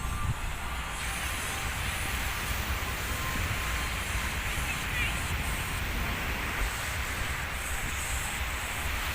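Wind rumbling on the microphone over a steady outdoor wash of noise, with faint background voices.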